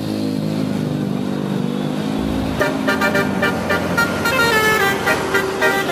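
Bus engine running, then from about two and a half seconds in a telolet horn, a set of electrically switched air horns, plays a quick tune of rapidly changing notes over the engine.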